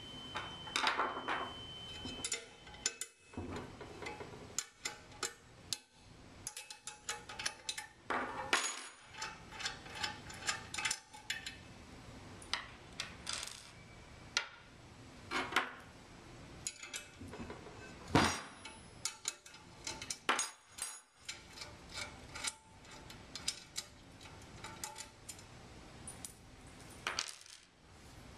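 Steel wrenches clinking and scraping on the stainless steel flange bolts of a sampler housing, with bolts and small hardware clattering onto a tabletop, in irregular short clicks throughout.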